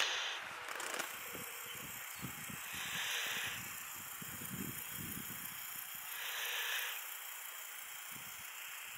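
A person breathing close to the microphone: three soft breaths, each under a second, about three seconds apart, over a steady faint hiss and low wind buffeting on the microphone.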